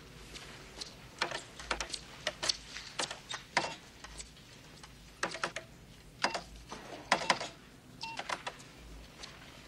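Typing on a computer keyboard: short bursts of clicking keystrokes with pauses between them.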